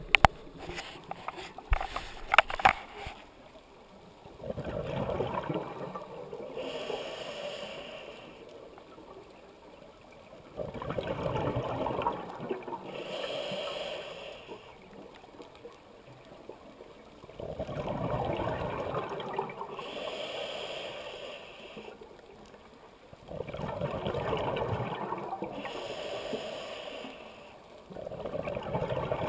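Scuba diver's regulator breathing underwater: slow breaths about every six seconds, each a hiss of air and a gurgling rush of exhaled bubbles. A few sharp knocks in the first three seconds.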